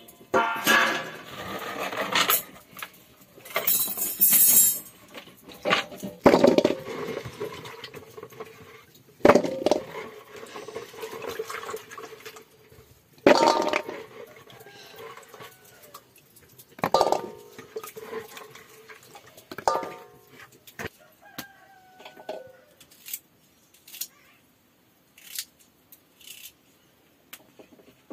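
Metal pots and cooking utensils clinking and knocking in a kitchen, about a dozen separate strikes spread through the stretch. A chicken calls briefly about twenty seconds in.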